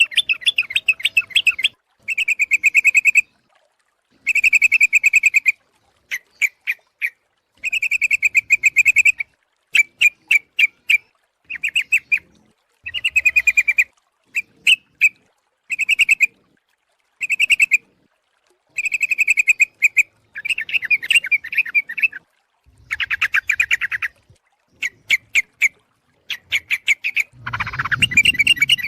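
Yellow-vented bulbul (trucuk) calling in repeated bursts of rapid, bubbling chatter, each a second or two long, with short pauses between. It is a female's call used as a lure to draw in males.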